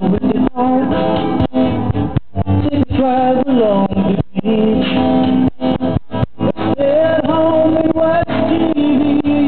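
A song with singing over guitar accompaniment.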